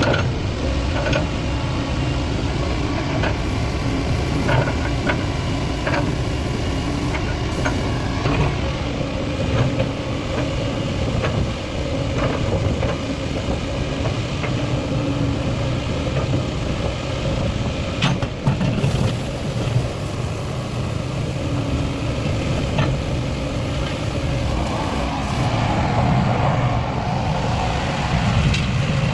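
Kobelco 75 excavator's diesel engine running steadily, with scattered sharp metallic clicks and knocks over it. The sound grows louder and busier over the last few seconds.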